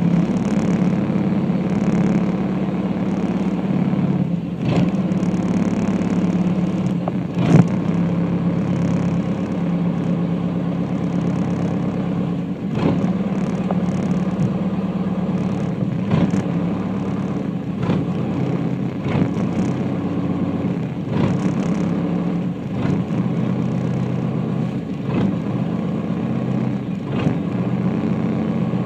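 A small ferry's engine running steadily, a low even hum with scattered knocks and clatters.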